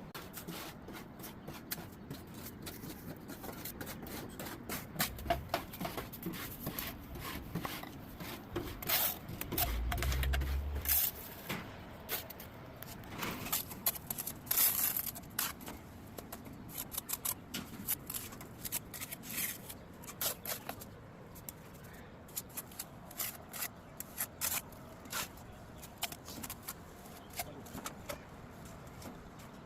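Irregular light clicks, taps and scrapes, denser in the first half, with a dull low thump about ten seconds in.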